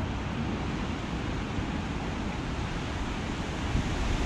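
Strong hurricane wind blowing across the microphone: a steady rushing roar with a deep rumble, swelling in a gust near the end.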